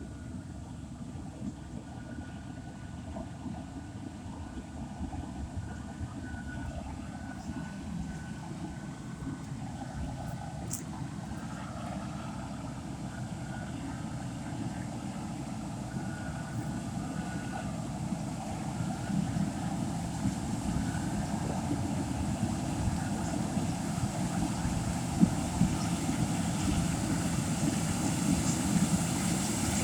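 Farm harvesting machinery running steadily, its engine rumble and machine noise growing gradually louder.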